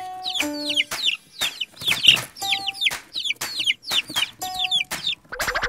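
Hen clucking sound effect, quick repeated clucks over a simple children's tune. A brief swish near the end.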